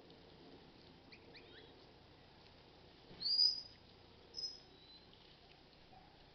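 Two short, high-pitched whistled chirps, the first louder and a little longer with a quick rise in pitch, about three seconds in and again about a second later. A few fainter short chirps come earlier.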